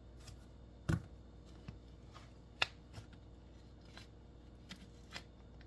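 Metal spoon knocking and scraping against a plastic blender cup as yogurt is spooned in: a few scattered clicks and knocks, the loudest a thump about a second in and a sharp click near the middle.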